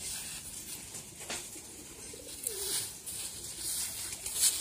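A dove cooing softly, with brief rustles of drying paddy grains stirred by bare feet.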